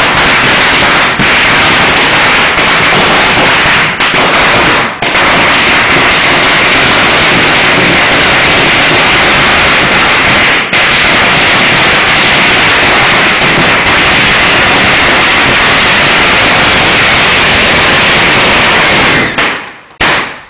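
A Sunshine Fireworks 1000-wala firecracker string going off: a continuous, very loud rattle of rapid bangs lasting about nineteen seconds, with a few brief lulls. It stops about a second before the end.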